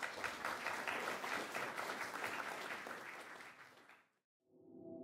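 Audience applauding, dying away about four seconds in. Near the end a sustained ringing tone of several steady pitches starts.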